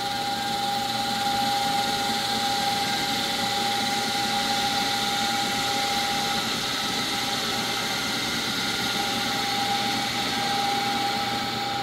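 CNC milling machine spindle running with an aluminum pulley mounted in it, the pulley turning against a fixed lathe tool bit that is cutting its crown on the second, finishing pass. It makes a steady, even whine with a hiss underneath.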